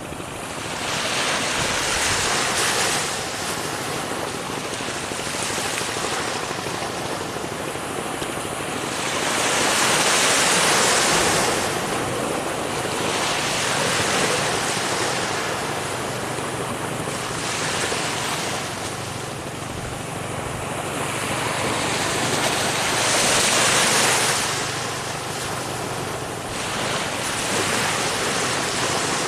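Ocean waves breaking on a shore, a continuous rush of surf that swells and falls every few seconds, with louder breakers about a third of the way in and again near the end.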